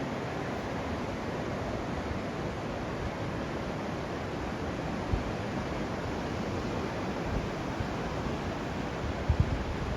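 Steady rush of sea waves washing on a sandy beach, with wind buffeting the microphone in a few low thumps, about halfway through and near the end.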